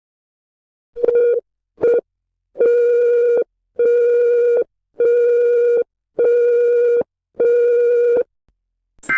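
Electronic emergency-alert tone beeping: two short beeps, then five longer, evenly spaced beeps of about a second each, all on one low pitch. A different, higher tone begins right at the end.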